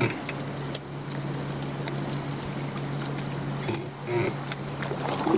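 Lake ambience around a kayak: a steady low hum with light water and paddle splashes and a few small clicks and knocks.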